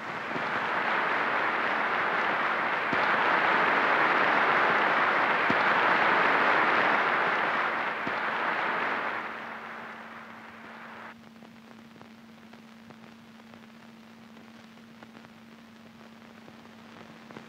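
A large audience applauding steadily for about ten seconds, then dying away, leaving the hiss and steady low hum of an old film soundtrack.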